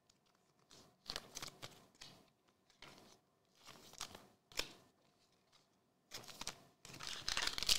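Faint flicks and light rustles of glossy Topps Chrome trading cards being slid apart and flipped through by hand: scattered soft clicks, the sharpest about four and a half seconds in, with a steadier rustle near the end.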